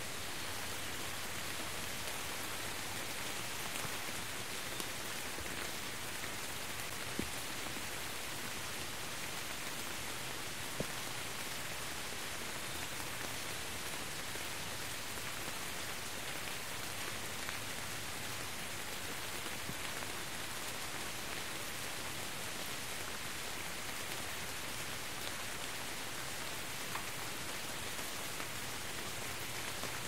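Steady rain falling, an even hiss with a few louder single drops standing out, the clearest about a quarter and a third of the way in.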